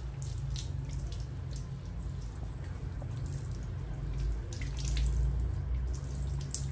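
Water running from a handheld shower head and splashing onto a tiled floor, with many small splashes and drips.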